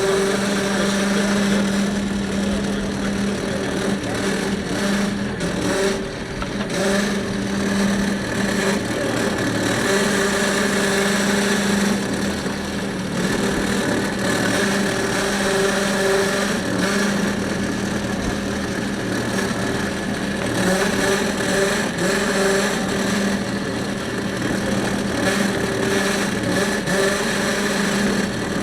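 A fishing boat's motor running steadily at one pitch.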